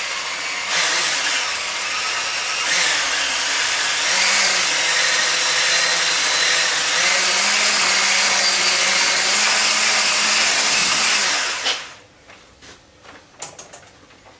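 Handheld electric mixer running steadily with its beaters in a saucepan of cooled vanilla pastry cream, stirring it up so the sugar settled at the bottom mixes back in. It cuts off suddenly near the end, followed by a few light knocks and clicks of handling.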